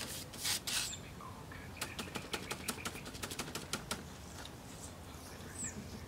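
Painting tools handled at the paint table: two short scraping swishes, then a quick run of sharp taps, about seven a second, for some two seconds.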